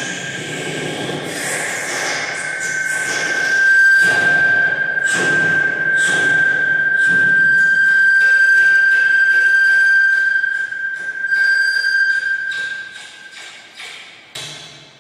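Vocal mimicry into a hand-cupped microphone over a PA: a steady, high whistle-like tone held for about twelve seconds, with sharp clicks and knocks over it, then fading away near the end.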